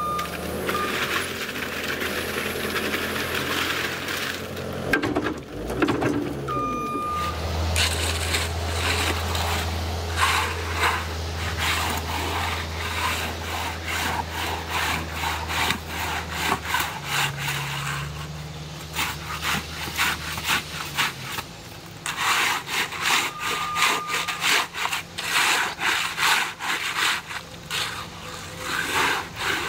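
Wet concrete sliding out of a mini excavator's bucket into a wooden form, then a shovel scraping and jabbing through the wet concrete in a long run of quick, rhythmic strokes. The excavator's diesel engine hums low underneath for several seconds in the middle.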